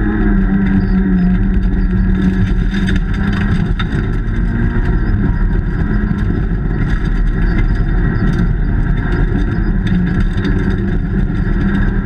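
Peugeot 106 S16 Group A rally car's 1.6-litre 16-valve four-cylinder engine running hard, heard from inside the cabin. The engine note drops a little about two seconds in and climbs again near the end, with sharp ticks here and there.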